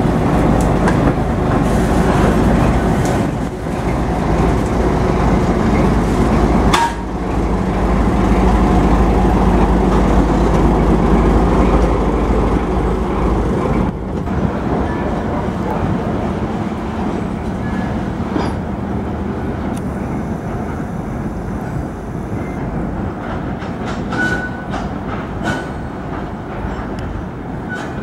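A TGM4 diesel-hydraulic shunting locomotive's engine running loudly as it pushes hopper wagons past, then quieter from about halfway as it moves away. Several clicks of the wheels over rail joints come near the end.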